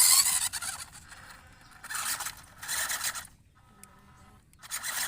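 WPL D12 RC mini truck's electric motor and gear drivetrain running in short rasping, scraping bursts: the loudest right at the start, two more in the middle and another near the end, with a faint whine between them.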